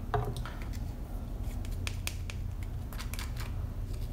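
Wooden stir stick clicking and scraping against a small plastic cup as leftover epoxy resin is scraped back in: a string of irregular small ticks over a steady low hum.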